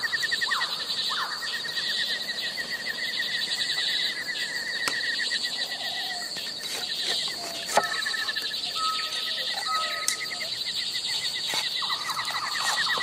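A large cleaver-style knife chopping vegetables on a wooden cutting board: a few sharp chops, the loudest about eight seconds in. Under them runs a steady background of fast-pulsing trilling animal calls.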